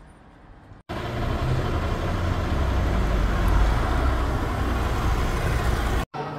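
Faint street ambience, then a loud road vehicle passing close on a city street: heavy low rumble and tyre noise that peaks about halfway through and eases a little before it cuts off abruptly.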